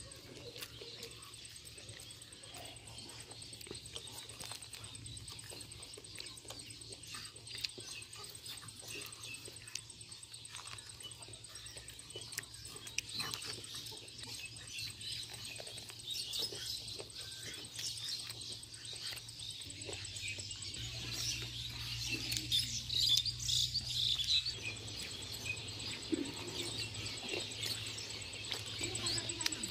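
Faint outdoor ambience of birds chirping, busier and louder in the second half, over a steady high insect drone, with scattered small clicks.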